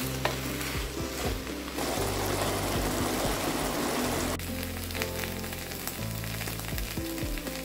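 Background music over the sizzle of amaranth greens and vegetables stir-frying in a kadai. The sizzle stops about four seconds in, leaving the music.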